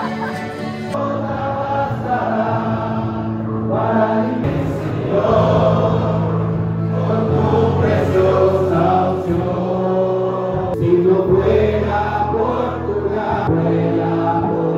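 A song sung with voices over sustained held chords, the chords changing every few seconds.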